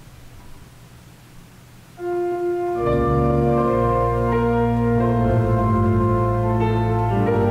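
Quiet room tone, then organ music starts about two seconds in with long held chords, joined about a second later by deep bass notes.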